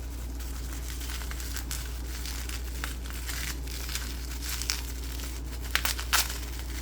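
Bubble wrap and packing material crinkling and rustling as a small figurine is unwrapped by hand, with a few sharper crackles near the end, over a steady low hum.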